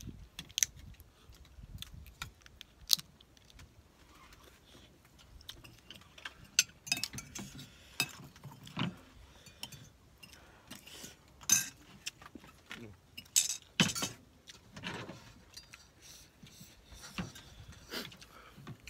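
Eating sounds: scattered sharp clicks and clinks of a spoon against a plate, with chewing, as field crab is eaten. The loudest clinks come a few seconds in and again at about eleven and fourteen seconds in.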